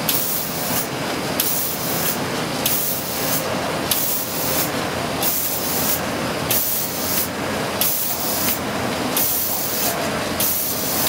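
OPP laminating machine with a chain-knife sheet cutter running at production speed. A steady mechanical hiss swells and falls about three times every two seconds, with faint clicks, as laminated sheets are cut and delivered onto the stack.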